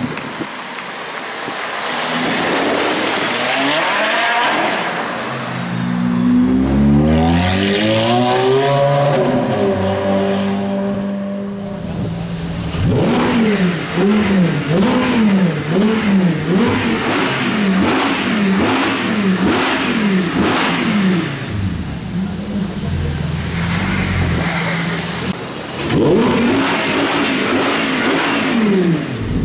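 Audi R8 GT Spyder's V10 engine revving while standing: after a rushing noise, one long rise in pitch, a short idle, then a string of about eight quick blips about one a second. It settles back to idle, with one more blip near the end.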